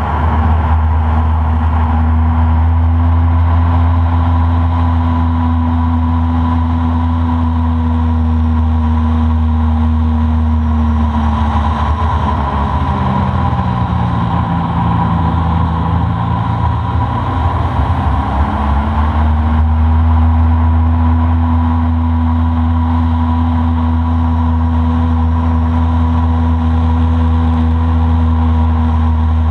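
Boat engine running steadily under way, eased back to a lower pitch about halfway through and then brought back up.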